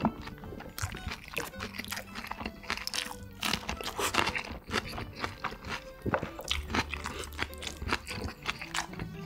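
Close-miked eating sounds: a person chewing and crunching food in many short, irregular crunches and mouth sounds, over background music with held low notes.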